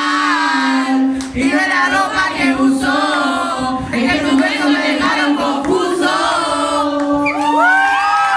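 Many voices singing a song together, crowd-style, with a held note under the melody and rising shouts breaking out near the end.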